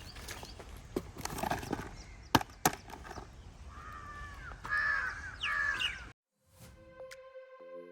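Bird calls repeated several times over outdoor background noise, with two sharp knocks in between. The sound cuts off about six seconds in, and electronic background music starts near the end.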